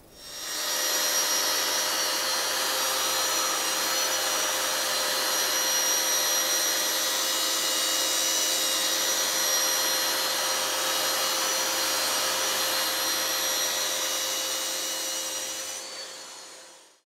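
Electric power tool motor running steadily with a whining hum, coming up to speed at the start and dying away near the end.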